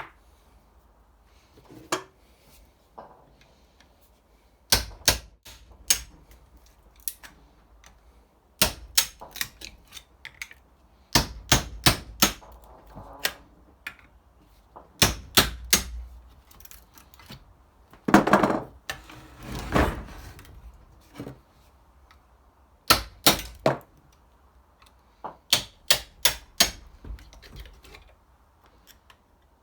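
Sharp metallic knocks and taps from hand work on stripped transformer parts. They come in quick clusters of two to five every few seconds, with a longer rattling clatter about two-thirds of the way in.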